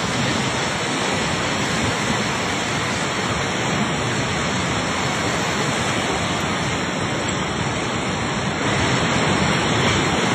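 Floodwater rushing past in a steady, dense noise with no distinct events. It gets a little louder near the end.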